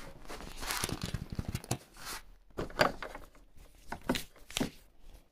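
Handling noise: irregular rustles and several light knocks as tools are picked up and moved on a wooden workbench, the sharpest knock a little under three seconds in.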